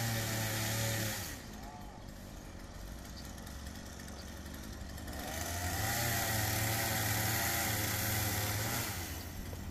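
Small petrol engine running, louder in the first second, fading, then swelling again from about five to nine seconds in, its pitch wavering slightly.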